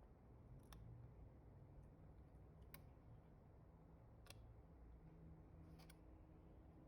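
Near silence with a few faint, sharp clicks spaced a second or two apart, from small tools and parts being handled during a phone screen repair.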